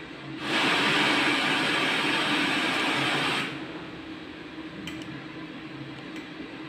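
FM radio static hissing through the amplifier's speakers as a Bluetooth/MP3 decoder module scans the FM band with no antenna fitted, so no station is picked up. The hiss cuts off abruptly after about three seconds, leaving a low steady hum and two faint button clicks near the end.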